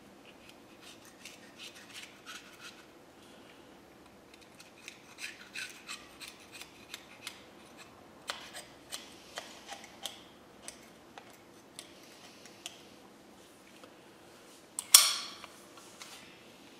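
Small hand tool scraping dried caliper paint off the edge of a painted metal brake caliper half: quiet, irregular little scrapes and clicks, cleaning overspill off the edge. One brief, louder burst of noise near the end.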